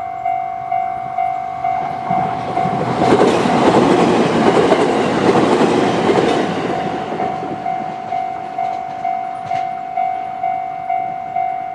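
Electronic level-crossing warning bell of the JR East Tohoku type ringing at a steady two-tone beat, about two strikes a second. From about two seconds in, a JR East E129 series electric train passes over the crossing, its rumble and wheel clatter swelling to the loudest part of the sound and fading by about eight seconds in.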